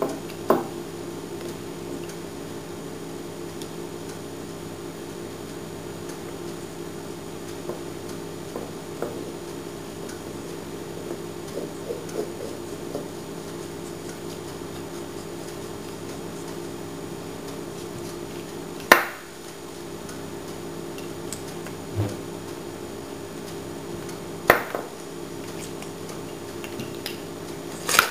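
Small wooden toy parts handled and fitted together by hand: scattered light wooden clicks and three sharper knocks, one about two-thirds of the way through, one a few seconds later and one at the end as the wooden top goes down spinning on the tabletop. A steady low hum runs underneath.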